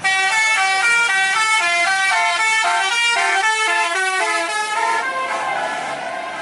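Tour bus's telolet horn playing a quick tune, starting abruptly, its notes stepping up and down about four times a second in two voices at once; the tune stops about five seconds in.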